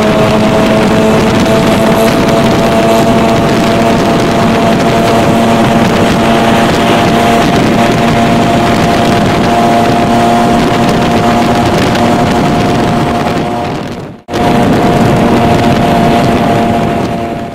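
Motorcycle engine running steadily while riding, with wind noise on the microphone; its pitch creeps up slightly. About fourteen seconds in the sound fades and cuts out briefly, then resumes.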